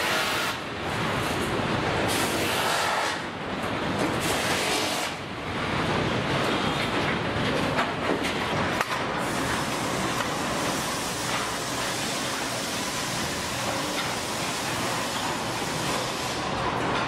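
Steady din of a car assembly line: machinery and conveyors running, with a couple of sharp clicks about halfway through.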